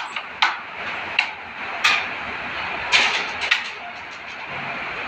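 A carrom shot: a striker and wooden carrom men give several short, sharp clacks as they knock together and against the board. A steady hiss runs underneath.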